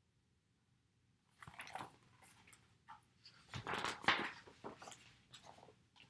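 Pages of a hardcover picture book being handled and turned: a string of soft, irregular paper rustles and crinkles starting about a second and a half in, loudest around the middle.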